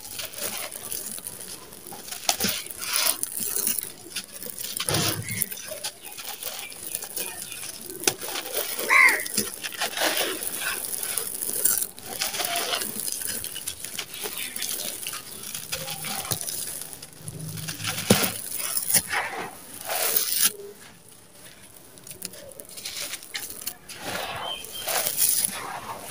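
Dry, gritty sand-cement lumps crushed and crumbled by hand: irregular crunching and crackling with loose grains pattering down onto a sandy pile. It eases off for a couple of seconds near the end, then starts again.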